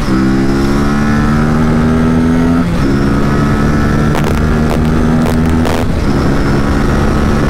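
Aprilia RS457's 457 cc parallel-twin engine pulling hard on the move, still on its stock exhaust. Its pitch climbs and then steps down at upshifts right at the start, near three seconds in and around six seconds in, over a steady rush of noise.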